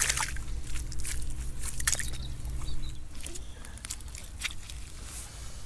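A small hand trowel scraping and scooping wet, muddy sand back into a dug hole: a run of short gritty scrapes and clicks. After about three seconds it gives way to a few faint clicks.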